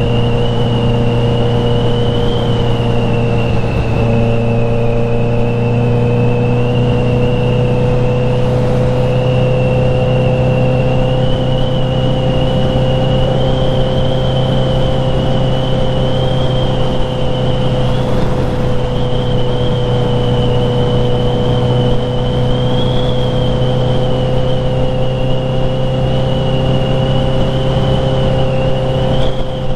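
Kawasaki Z900 inline-four engine running at steady revs while cruising, its pitch holding almost level with a slight shift about four seconds in, under a thin, steady high whine.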